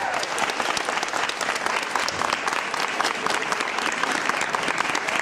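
Audience applauding, a steady wash of many hands clapping.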